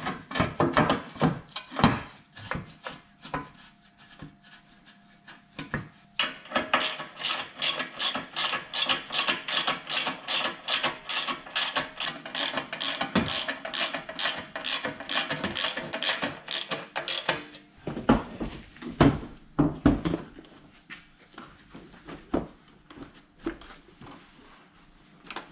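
Quick, even rasping strokes, about three a second, from a hand tool worked on car body parts during front-bumper fitting. The strokes start about six seconds in and stop near eighteen seconds. Scattered knocks and clicks come before them and a few knocks after.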